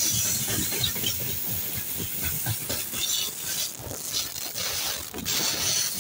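Open freight wagons of a long freight train rolling past close by: a steady hiss and rumble of steel wheels on the rails, with repeated knocks from the wheels and wagons throughout.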